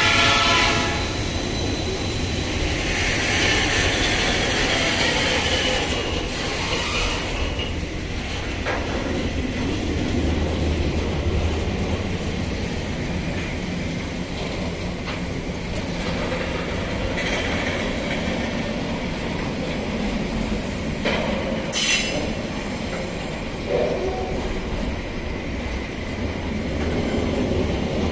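Container freight train rolling past on flat wagons: a steady rumble of steel wheels on rail, with wheel squeal coming and going. One sharp clank comes late on.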